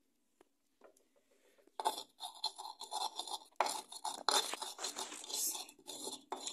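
A stone pestle grinding seasoning in a glazed clay molcajete, rubbed round and round in quick rough scraping strokes against the scored bowl. The grinding starts about two seconds in, after a few faint clicks.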